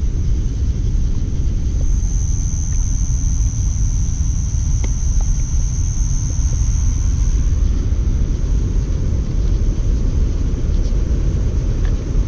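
A steady low rumble, with a thin, high, steady whine that swells for a few seconds in the middle.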